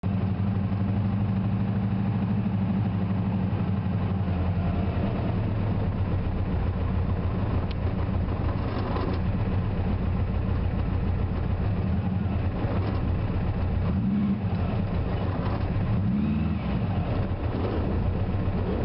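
Turbocharged VW Beetle drag car's engine idling steadily, heard from inside the cabin while it waits at the start line, with a couple of brief blips of the throttle near the end.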